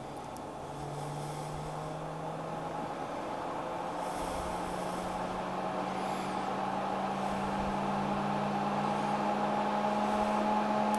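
Prusa Box enclosure fans, driven by a PWM temperature controller, spinning up: a steady hum that slowly rises in pitch and grows louder as the controller's sensor is warmed in the hand and the fans are sped up.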